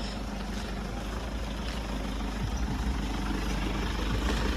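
A car engine running steadily under load and slowly getting louder, as the vehicle struggles to pull up a steep slope.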